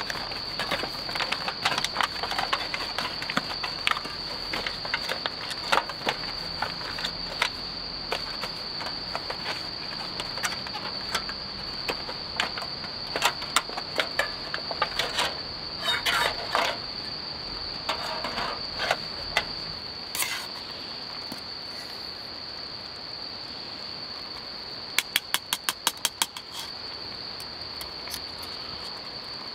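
Aluminium foil crinkling and crackling in irregular bursts as it is folded and unwrapped by hand, dying away about two-thirds of the way through, over a steady high chirring of crickets. Near the end comes a quick even run of about eight sharp ticks.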